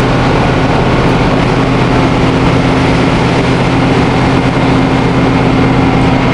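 Cross-Channel ferry's engines running with a steady low hum, under a loud, even rushing noise of wind and water at sea.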